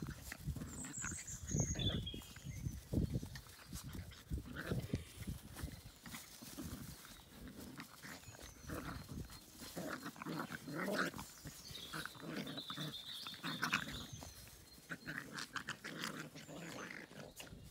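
Small dog and puppies play-fighting, growling and yapping in short irregular bursts.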